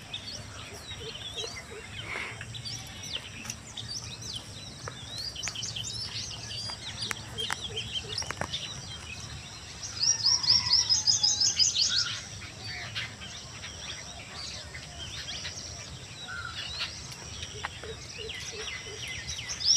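Wild birds chirping and calling in short high notes, with a louder, rapid run of repeated chirps for about two seconds midway through.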